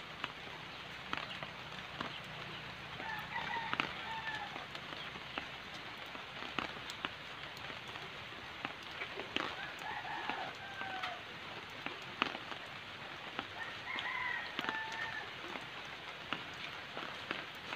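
A rooster crows three times in the background, each crow about a second long with a rise and fall in pitch: a few seconds in, around the middle, and again near the end. Scattered light clicks and ticks sound between the crows.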